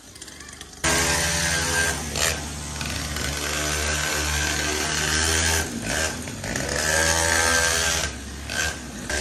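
Mini pocket bike's small engine running loudly through its exhaust as it is ridden, its revs rising and falling. The engine picks up about a second in and eases off briefly twice in the second half.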